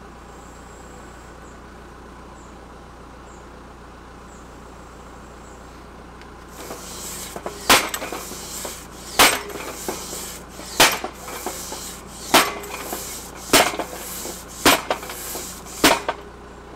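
Tractor-mounted post driver ticking over, then from about six and a half seconds in its hammer comes down on a timber fence post seven times, a little over a second apart, driving the post into the ground.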